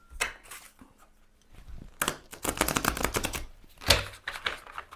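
A deck of glossy tarot cards being shuffled: a few soft clicks, then from about two seconds in a rapid run of card edges clicking and slapping as the cards slide across each other.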